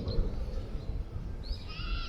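Wind buffeting the microphone with an uneven low rumble, and a bird giving a short chirping call about one and a half seconds in.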